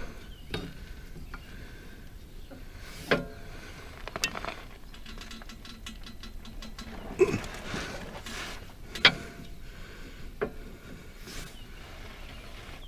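Metal wrenches clinking and knocking against a Lastec rotary mower's blade spindle while a stuck blade nut is worked on. About half a dozen sharp, separate knocks, the loudest about 3 and 9 seconds in, with a quick run of fine ticks around four to five seconds in.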